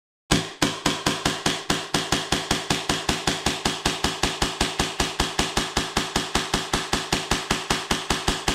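Custom HPA-powered Hi-Capa 2011 gas blowback airsoft pistol firing a long, steady string of shots, about five a second, its slide cycling sharply on each shot.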